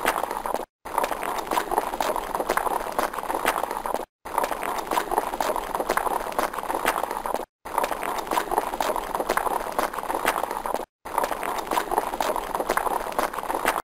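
Hooves of several horses galloping on dry dirt, a fast, continuous drumming of hoofbeats. The sound drops out for a moment about every three and a half seconds.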